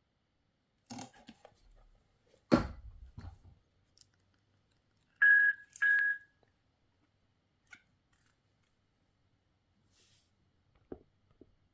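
Clicks and a knock from handling a NewRixing portable Bluetooth speaker, then two short, high beeps from the speaker a little over five seconds in, about half a second apart.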